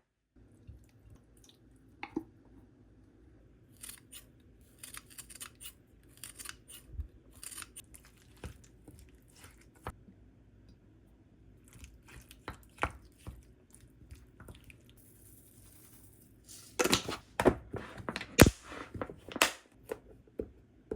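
Household items being handled: scattered clicks, knocks and crisp rustling of containers and packaging, quiet for long stretches and busier near the end.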